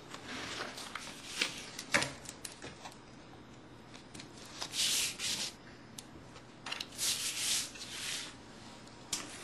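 Sheets of paper rustling as they are handled and leafed through, in several short bouts with a few crisp ticks, the longest about a second and a half near the end.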